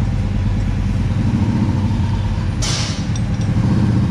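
An engine running steadily with a low hum, with a short burst of hiss a little before the end.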